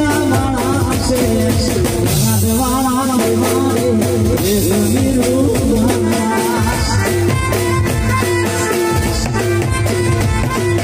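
Live Gujarati folk song: a band with drum kit and keyboard playing a steady dance beat, with a male voice singing the melody.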